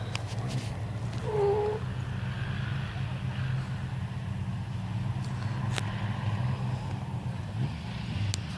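4x4 off-road vehicle engines idling with a steady low hum, with a brief tone about a second and a half in and a few sharp clicks.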